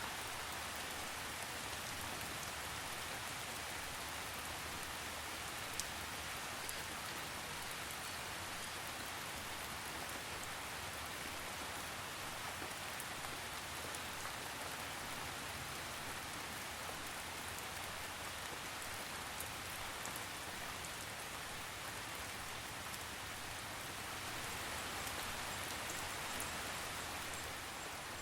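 Steady rain falling on a surface, with the occasional single drop ticking out above the hiss.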